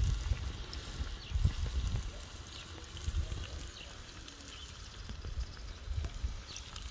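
Sausages and potatoes sizzling in fat on a tanjurača, a steel plough-disc pan over a wood fire, a steady hiss with small pops. Gusts of wind on the microphone give an uneven low rumble.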